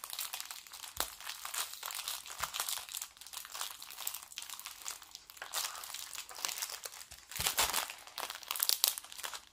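Plastic film crinkling irregularly as a rolled diamond-painting canvas and its bag of drills are handled and turned over, with a few light knocks against the tabletop. The crinkling is loudest near the end.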